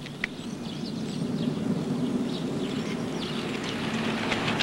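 The low rumble of a motor vehicle's engine and tyres, growing gradually louder, with faint high chirps above it.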